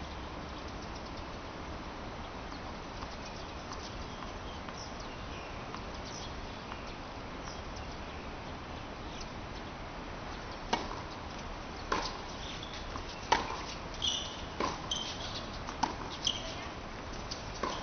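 Tennis rally on a hard court: a string of sharp ball-on-racket pops about every second and a bit, starting a little past the middle, over a steady background hiss.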